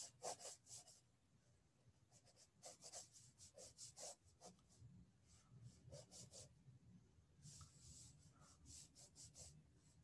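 Pencil sketching on paper: faint, quick, light scratching strokes in several short runs.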